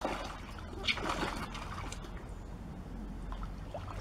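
Water splashing and sloshing as a mink thrashes through a shallow pond chasing a rat, with a sharper splash about a second in.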